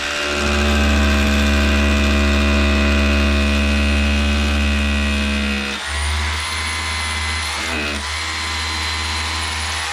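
Electric drill running steadily under load, boring into the grout between ceramic wall tiles to take wall plugs. About six seconds in its tone dips and shifts, and it runs on to the end.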